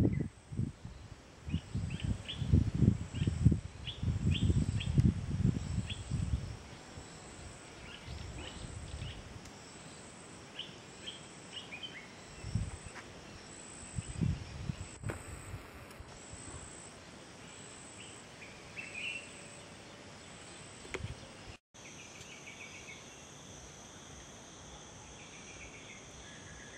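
Rural outdoor ambience: scattered short bird chirps over a steady high insect trill, with low rumbling gusts of wind on the microphone in the first six seconds.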